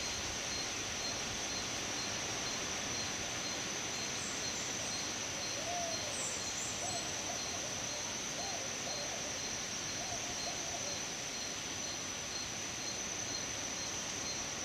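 Tropical forest ambience led by a steady, high insect drone, with a fainter evenly pulsing insect chirp beneath it. A few brief high bird notes come about four to seven seconds in, and soft low calls sound through the middle.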